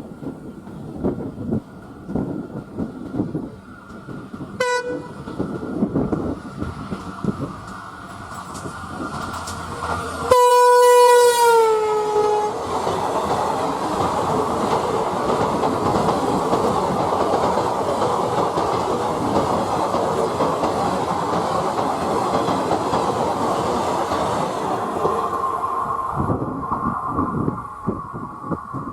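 WDP-4D diesel locomotive horn giving a short toot about five seconds in, then a loud blast about ten seconds in whose pitch drops as the engine passes. The express's coaches follow, rushing past at speed with rapid clickety-clack for some fourteen seconds before the noise falls away.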